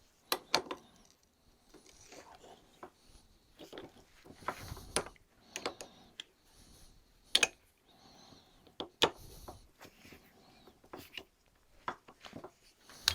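Irregular clicks and knocks of metal parts and tools being handled on a workbench, about a dozen sharp hits with quieter shuffling between them.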